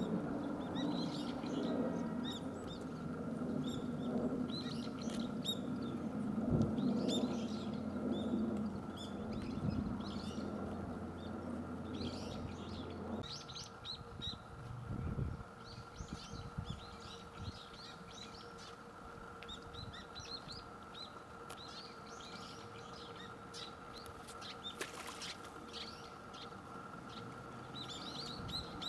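Birds chirping in many short, high calls spread through the whole stretch, over a low rumble that cuts off about halfway through, and a faint steady hum.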